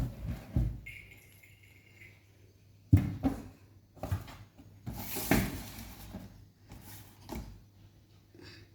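Kittens scuffling in and against a cardboard box: irregular knocks and scratching on the cardboard, the sharpest knock about three seconds in.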